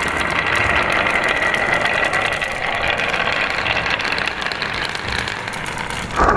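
Marbles rolling along a wooden marble run: a continuous rolling rattle full of small clicks, with a steady ringing hum. Just before the end the sound changes abruptly to a lower-pitched rolling hum.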